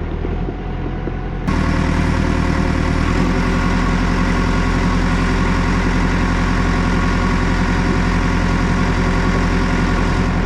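Caterpillar backhoe's diesel engine running steadily. It jumps suddenly louder about a second and a half in, and its low note shifts a little about three seconds in.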